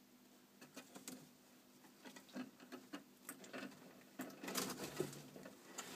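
Scattered light clicks, taps and scratchy rustles as a savannah monitor is hand-fed with metal feeding tongs on bark substrate, busiest about four to five seconds in.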